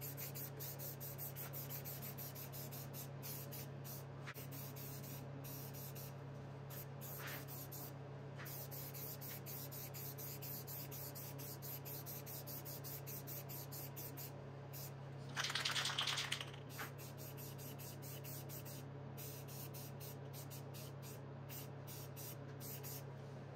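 Aerosol spray paint can hissing in passes as a coat of paint is sprayed on, with one louder hiss of about a second and a half roughly two-thirds of the way through. A steady low hum runs underneath.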